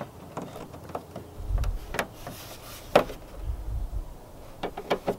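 Scattered light clicks and taps of small hardware, a well nut and bolt being handled and pushed into a drilled hole in a car's body panel, the sharpest about three seconds in, with occasional low rumbles.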